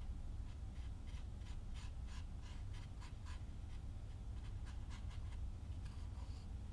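A tiny metal spoon scraping cinnamon sugar across miniature rolled-out dough and scooping it from a small dish, a run of short scratching strokes, about two or three a second, with a few more near the end.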